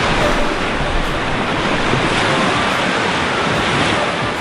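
Shallow Gulf surf washing and sloshing steadily, with wind on the microphone.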